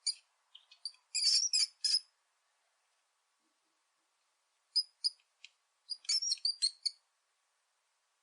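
High-pitched chirps and squeaks from a small animal, in two quick clusters: one about a second in and another around five to seven seconds in, with silence between.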